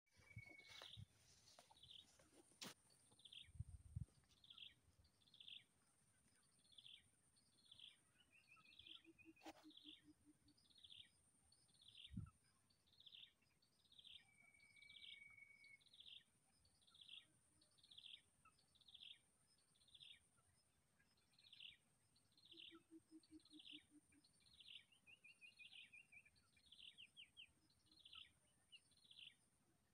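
A small bird calling faintly: a short, falling, high chirp repeated about once a second, with a few brief trills between, over a steady high whine.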